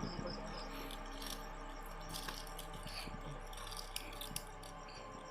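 Night insects, crickets, chirping in short repeated high pulses, with light rattles and scrapes of small things being handled.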